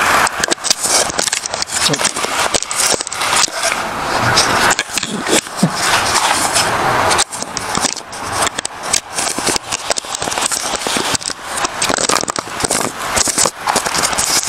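Handling noise of a hand-held camera: scraping, rubbing and crackling on the microphone, with many small irregular clicks and knocks.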